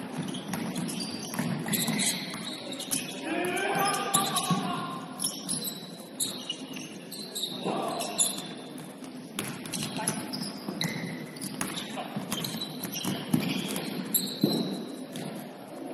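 Basketball game in play: a ball bouncing on a hardwood court amid scattered short knocks, with players' voices calling out now and then.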